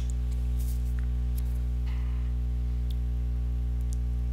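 Steady electrical mains hum, a low buzz made of a stack of even tones that does not change, with a few faint computer-keyboard clicks spaced about a second apart.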